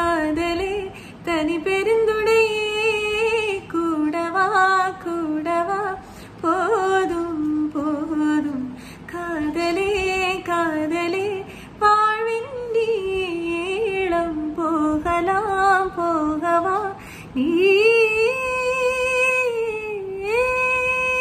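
A woman singing a slow, melodic song solo, without accompaniment, in phrases broken by short breaths. Near the end she holds long sustained notes.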